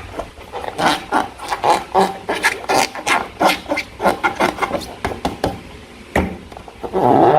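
Slime being squished and worked by hand, a run of irregular wet clicks and crackles, with a louder, fuller squelch near the end.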